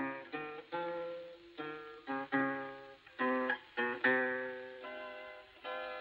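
Acoustic guitar playing a slow instrumental melody: plucked notes and chords, each ringing out and fading before the next.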